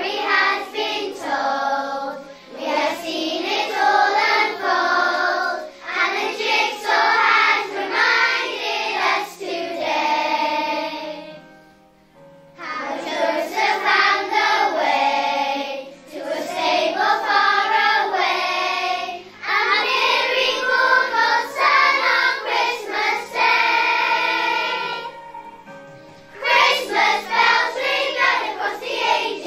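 A group of children singing a song together, in phrases with short pauses about twelve seconds in and again about twenty-five seconds in.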